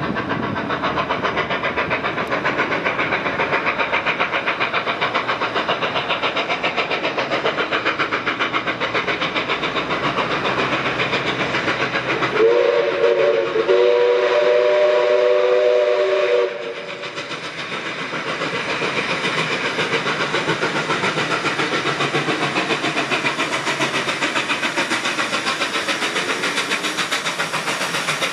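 Steam locomotive 5917 approaching under steam with a steady hiss and a rapid beat. About twelve seconds in its steam whistle sounds a chord, a short blast and then a longer one of about three seconds, louder than the rest.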